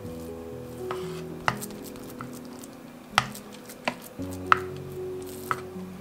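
Wooden spoon pressing minced meat into a metal springform pan, knocking sharply against the pan several times, over soft instrumental background music.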